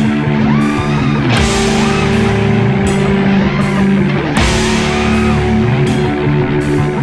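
Rock music with guitar, loud and steady, with the chords changing every second or two.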